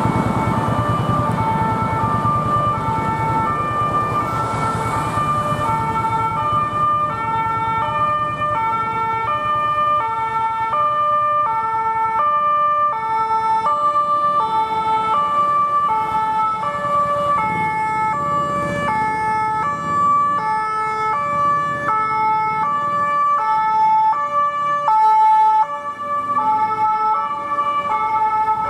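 Ambulance two-tone siren, alternating steadily between a low and a high note, over city traffic noise as the ambulance approaches and passes.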